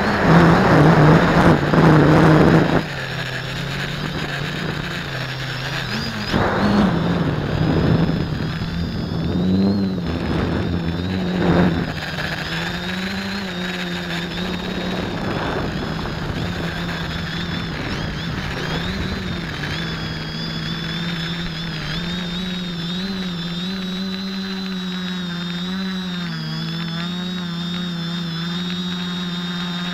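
Quadcopter's electric motors and propellers buzzing in flight, the pitch wavering up and down with the throttle. The first three seconds are louder and rougher before dropping back sharply, with more louder surges around the middle.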